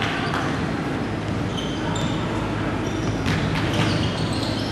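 Basketball game sounds on a hardwood gym court: the ball bouncing and a few short high sneaker squeaks, over a steady low hum and hall noise.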